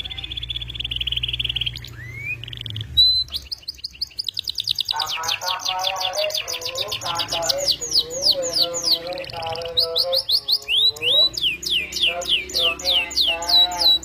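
Domestic canary in full song: a rapid buzzing trill for about three seconds, then fast runs of repeated downward-sweeping whistled notes over lower warbling notes.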